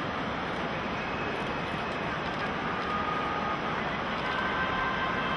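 Steady crowd noise of a baseball stadium: a constant murmur and hubbub from a large audience in the stands.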